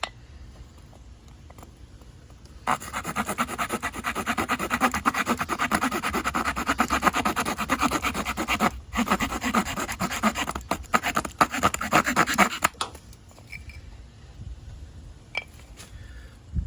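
Leatherman Sidekick multitool's folding saw blade sawing through wood in quick back-and-forth strokes. The sawing starts about three seconds in, pauses briefly near the middle, and stops a few seconds before the end.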